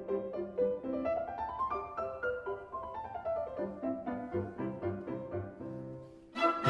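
Background music: soft solo piano playing single notes, with a rising run of notes about a second in. Just before the end it dips briefly, then a louder, fuller passage comes in suddenly.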